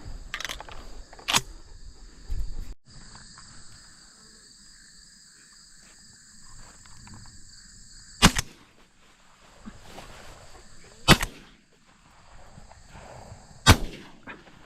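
Shotgun shots during a dove hunt: two lighter reports near the start, then three loud single shots about three seconds apart in the second half. A steady high-pitched insect buzz runs behind them.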